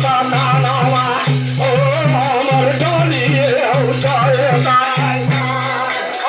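Devotional folk song: a man singing with a wavering pitch over shaken rattle percussion and a low accompaniment that pulses about three or four times a second.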